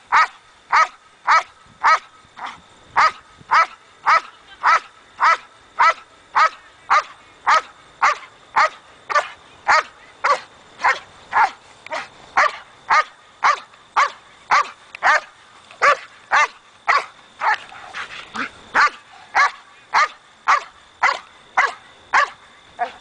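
Belgian malinois barking over and over in a steady, even rhythm, nearly two barks a second, at a helper threatening it during protection training.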